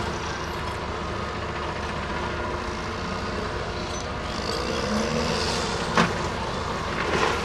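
CAT M314F wheeled excavator's diesel engine running steadily as it swings its boom and bucket. A single sharp knock comes about six seconds in, and a short clatter near the end.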